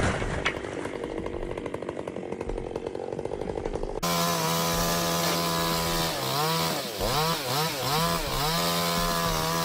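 Chainsaw engine running: a fast pulsing rattle at first, then after an abrupt change about four seconds in, a steady high engine tone whose pitch dips and climbs again several times near the end.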